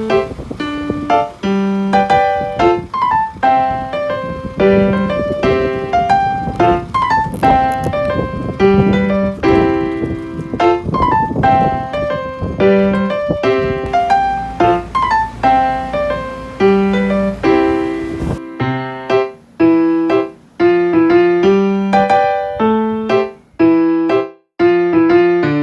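Background music led by a piano or electric piano playing short rhythmic notes; a noisy low layer underneath drops out about 18 seconds in, leaving the keyboard alone.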